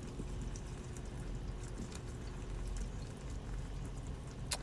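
Ground beef and onions cooking in an enamelled cast-iron pot: a soft sizzle with light scrapes and ticks from a spatula stirring and breaking up the meat, and one sharper click near the end.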